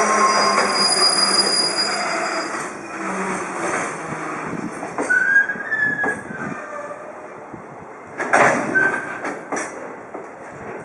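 Freight train of container wagons rolling slowly into the station and slowing: the wheels squeal in high thin tones that fade, and a few sharp clacks of wheels over rail joints come near the end.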